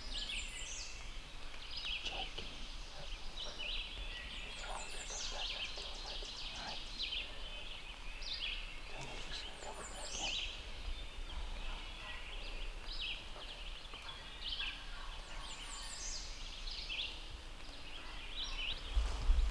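Wild turkeys calling close by in repeated bursts, with a songbird's high falling note recurring every few seconds.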